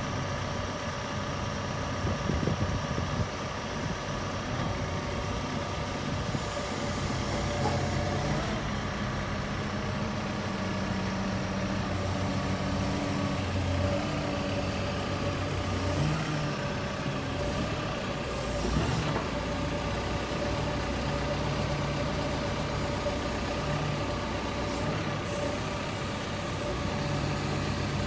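Caterpillar 432F2 backhoe loader's four-cylinder diesel engine running steadily while the machine stands still, with a steady whine over the engine note. A couple of brief knocks come about two-thirds of the way through.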